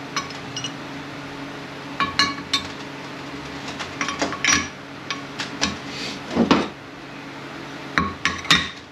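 Metal transmission parts being handled, knocking and clinking against each other with short ringing tones, in scattered clusters over a steady low hum.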